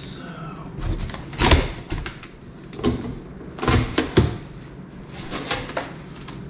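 Cardboard box flaps being pulled open and folded back by hand: several short scrapes and rustles of cardboard, the loudest about a second and a half in and near the middle.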